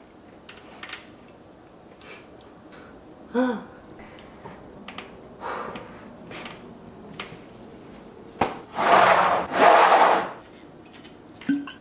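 Handling sounds at a table: scattered light taps and knocks, a short hummed note about three seconds in, then two louder rustling, scraping noises lasting about a second each near the end.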